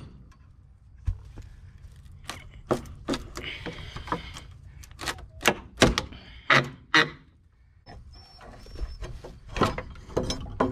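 A steel pry bar levering at weathered wooden boards of an old hay feeder: an irregular series of sharp knocks and cracks of metal on wood and wood against wood, with a short creaking stretch in the middle.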